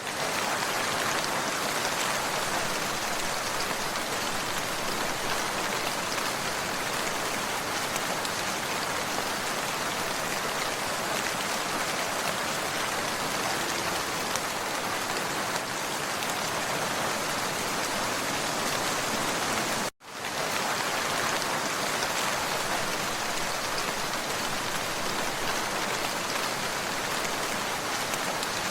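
Steady, dense rainfall, a continuous hiss of drops hitting surfaces. It cuts out abruptly for a fraction of a second about twenty seconds in, then resumes unchanged.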